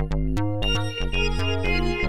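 Background music: a synthesizer track with a steady beat and a moving bass line.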